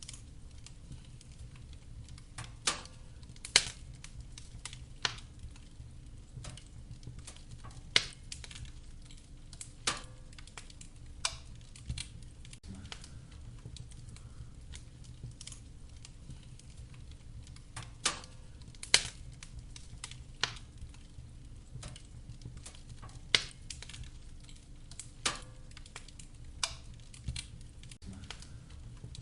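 Wood fire in a fireplace crackling: a steady low rumble under irregular sharp pops and snaps from the burning firewood, two of them much louder than the rest.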